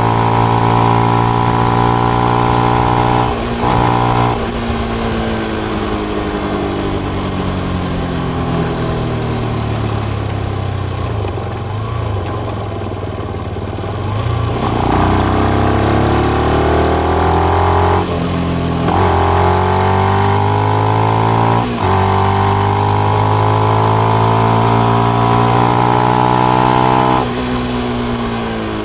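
Benelli BN125's 125 cc single-cylinder four-stroke engine running through its stock exhaust with the dB killer in. It is pulled up through the revs with brief breaks for gear changes, eases off slowly in between, and drops in revs near the end.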